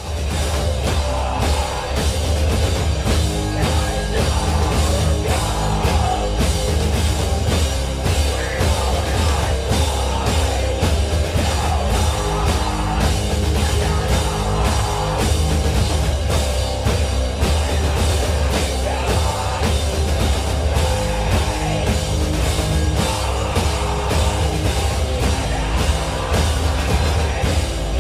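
Punk rock music: a band playing with a steady, driving drum beat, starting abruptly.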